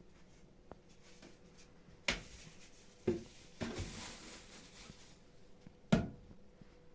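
Kitchen handling sounds: four separate knocks and clatters, about two, three and three and a half seconds in, and the loudest near the end.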